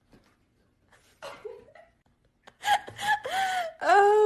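A person's high-pitched laughter: a short squeal about a second in, then a run of laughing in the second half.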